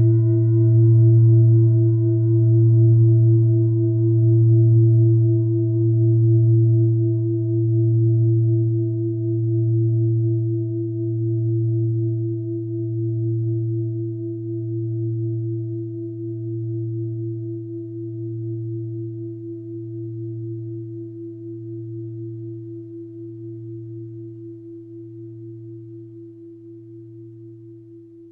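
A mindfulness bell rings out after a single strike: a deep hum with higher overtones that slowly fades, its higher tones dying away first. The tone swells and ebbs about every two seconds as it decays.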